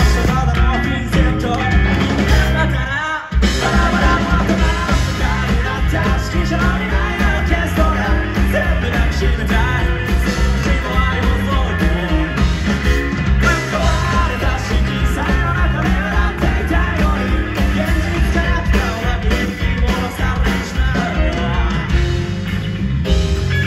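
Live rock band playing a song with singing, heard through a concert hall's PA from among the audience; the band stops for a moment about three seconds in, then comes straight back in.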